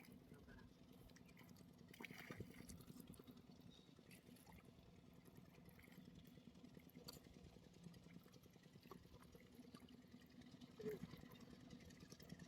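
Near silence: a faint steady low hum with a few soft ticks.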